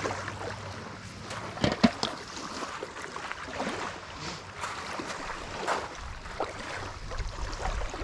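Small waves lapping along a pebbly lake shore, with scattered clicks and knocks, the loudest just under two seconds in.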